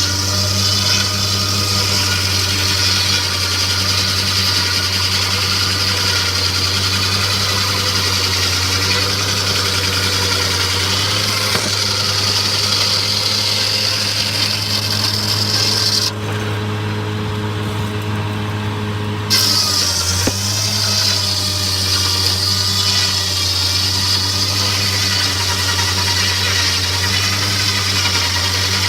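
Sawmill machinery running steadily: a continuous low drone with a bright high whine over it. The high whine drops out for about three seconds midway, then returns.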